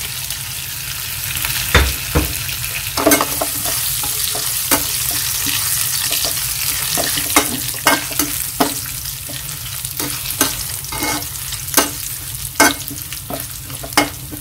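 Garlic, chili and bay leaves sizzling in hot palm oil in a metal wok, with a spatula scraping and knocking against the pan as it is stirred. The knocks come irregularly over the steady sizzle.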